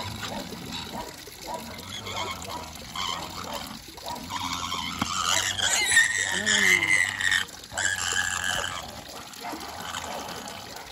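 Water running from a tap into a plastic basin and splashing as a small pig is bathed. The pig grunts, then squeals loudly for about three seconds around the middle.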